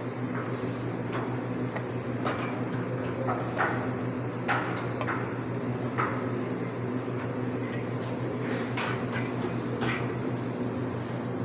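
Café counter background: a steady low hum with scattered light clinks and taps of cups, dishes and utensils, a dozen or so spread across the stretch.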